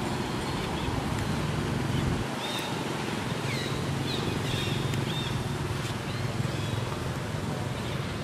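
A few short, high animal chirps in the trees, some falling in pitch, over a steady low rumble on the microphone.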